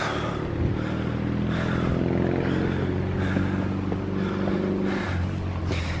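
A motor vehicle engine running with a steady, even hum, coming in about half a second in and thinning out about five seconds in. Under it are footsteps on a stone path.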